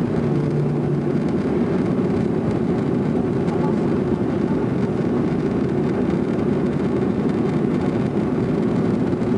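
Jet airliner cabin noise during the climb after takeoff: a steady, dense low rumble of engines and airflow heard from inside the passenger cabin, holding an even level throughout.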